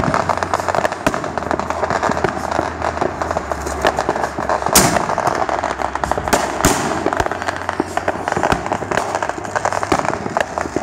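Fireworks and firecrackers going off in a dense, continuous crackle of rapid pops, with two louder bangs about five and six and a half seconds in.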